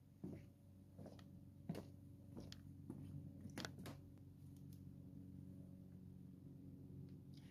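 Footsteps on a wooden deck: about seven light knocks over the first four seconds, then they stop. Under them, a faint low steady hum.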